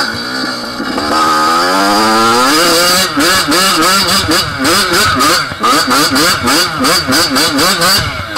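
Yamaha YZ dirt bike engine revving up as it pulls away, then rising and falling about twice a second as the throttle is worked up a bumpy hill climb, with short bursts of noise among the revs. Near the end the revs drop.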